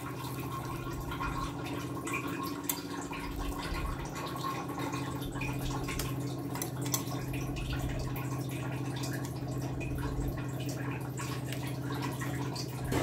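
Small sticky clicks and light taps as a coarse ground chicken-and-bread paste is emptied from a steel mixer-grinder jar onto a steel plate and pressed with the fingers, over a steady low hum.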